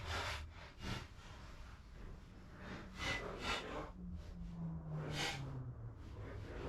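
A floor jack being moved into place on a shop floor: a few separate scrapes and rubs a second or two apart, with a faint low tone that falls slowly in the middle.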